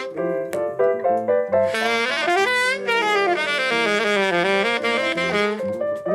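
Saxophone playing a jazz line through the PA, with quick runs of notes rising and falling.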